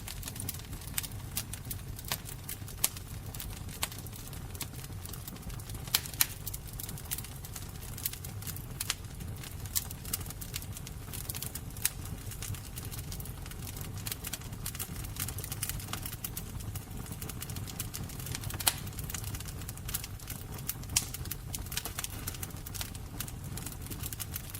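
Fire crackling: frequent irregular sharp pops and snaps over a low, steady rumble, with a few louder pops scattered through.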